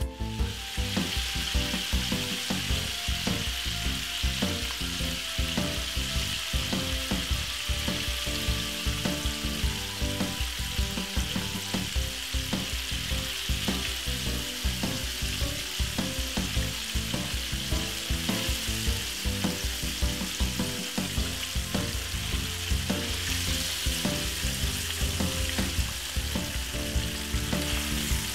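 Battered chicken pieces frying in a frying pan of hot oil: a steady sizzle with constant crackling and popping.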